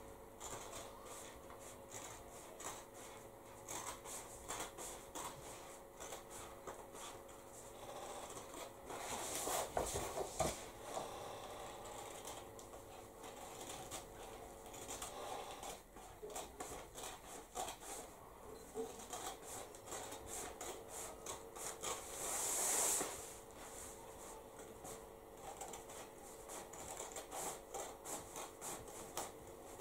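Scissors cutting through roller-blind fabric: many short, faint snips, with louder rustles of the stiff fabric sheet about nine seconds in and again a little past twenty-two seconds.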